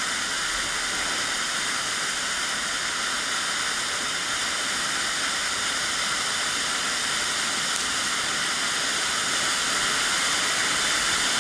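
Röder Dämonenfeuer Vulkan firework fountain hissing steadily as it sprays a column of sparks, getting a little louder near the end.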